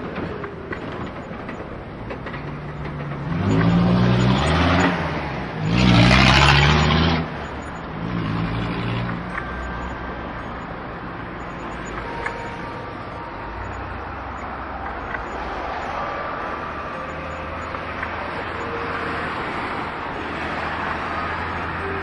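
Zebra braying: two loud calls made of rapid yelps that jump up and down in pitch, starting about three and six seconds in, then a shorter, quieter call about two seconds later.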